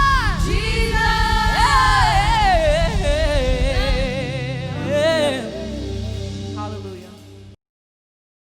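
Gospel singing over band accompaniment: a voice sings runs with vibrato over a steady beat. The beat drops out about halfway, a last held note fades, and the sound cuts off abruptly near the end.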